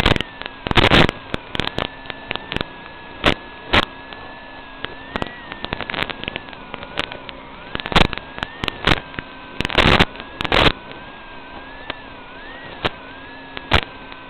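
Audio from an analog FPV video link as recorded by the goggles' DVR. A steady electronic hum and whine, with one tone wavering up and down, is broken about ten times by loud, sudden crackles of radio static.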